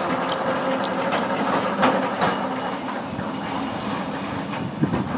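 Small double-deck electric tram rolling slowly along its track, its wheels clicking and knocking on the rails over a steady low hum. A few sharper knocks stand out, the loudest about 2 s in and near the end.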